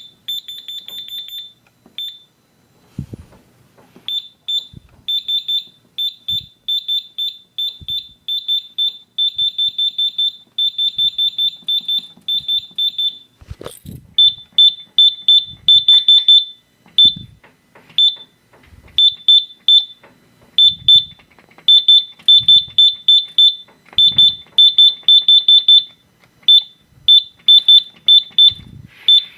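Electronic fire alarm sounder giving rapid, high-pitched beeps in irregular bursts with short gaps, and faint low knocks between some bursts.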